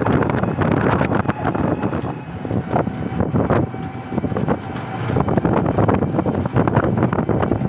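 Ride noise from a moving vehicle with wind buffeting the microphone, and frequent knocks and rattles throughout.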